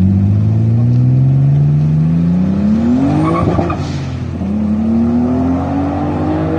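Turbocharged BMW E36 M3's straight-six accelerating away hard, the revs rising steadily through one gear, breaking off at an upshift about three and a half seconds in, then climbing again in the next gear.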